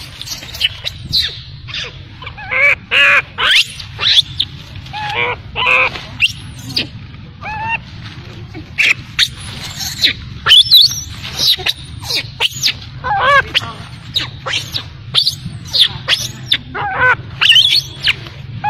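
Baby long-tailed macaque crying: many short, high-pitched squealing calls that rise and fall in pitch, coming in quick runs, with sharp clicks between them.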